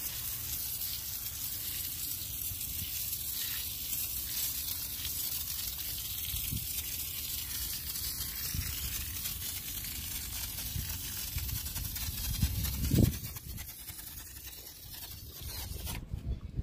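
IK Foam Sprayer 1.5 pump-up foamer spraying foam onto a car wheel: a steady hiss that stops about thirteen seconds in, with a thump as it stops.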